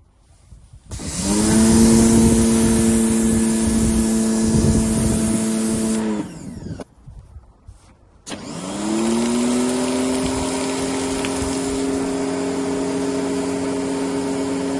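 Mac Allister MPWP 2200 electric pressure washer's motor and pump starting with a rising hum and running with a steady hiss, stopping at about six seconds, then starting again with a rising hum a little after eight seconds and running on.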